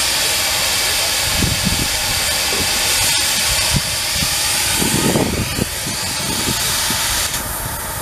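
Steam ploughing engine hissing steam steadily, with a few low irregular rumbles. The hiss drops away suddenly near the end.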